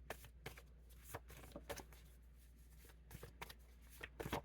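Tarot cards being shuffled and handled: a faint, irregular scatter of short card snaps and slides.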